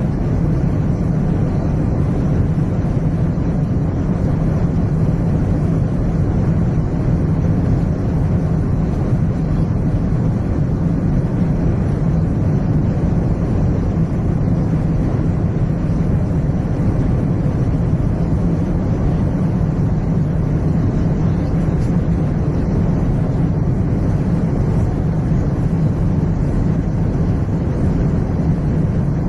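Airplane cabin noise in flight: a steady low rumble with hiss above it from the engines and airflow, unchanging throughout.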